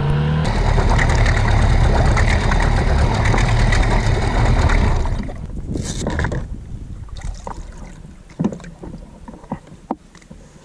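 Tohatsu outboard motor running steadily at low speed, then shut off about five seconds in. After that there are only scattered light knocks.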